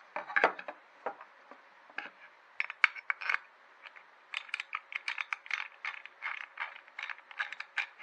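Quick, uneven metallic clicking and ticking from the oil pump and linkage on a Vespa P200E's cast-aluminium carburetor box as they are turned and worked by hand to test the pump. The clicks come thicker from about halfway through.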